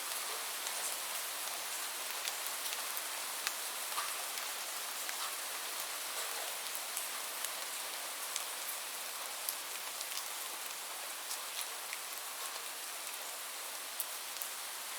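Light rain falling steadily, a soft even hiss with many scattered sharp drop ticks.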